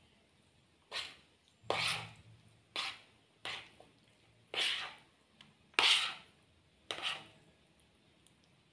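A fork scraping and knocking against a plate while fried instant noodles are lifted and tossed to mix them: seven short scrapes, roughly one a second.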